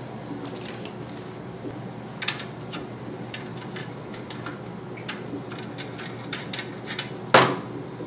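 Small clicks and light metal taps from fittings being handled on top of a model steam boiler, with one sharper, louder click near the end.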